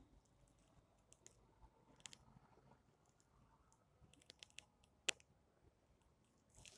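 Near silence: room tone with a few faint, short clicks, the sharpest about five seconds in.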